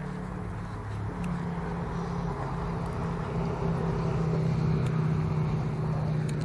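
A vehicle engine running at a steady low hum, getting louder over the first five seconds and then easing slightly.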